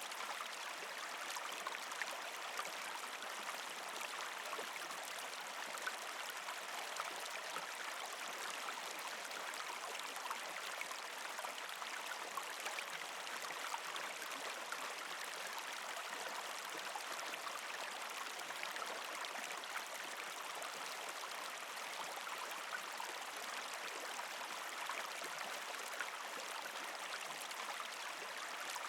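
Partially frozen creek flowing steadily, water trickling and gurgling over rocks, with a fine patter of small splashes on an even rush.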